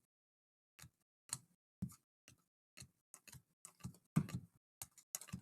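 Trading cards being handled on a table: a string of short, irregular taps and clicks as cards are flicked, sorted and set down.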